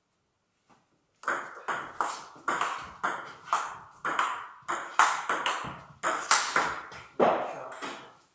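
Table tennis rally: a plastic ball struck by the bats and bouncing on the table in a quick, regular run of sharp clicks, about two to three a second, each ringing briefly in the room. The rally starts about a second in.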